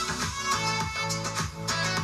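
A song with a steady beat and string instruments playing through the Monster Rockin' Roller 360 portable Bluetooth speaker at high volume.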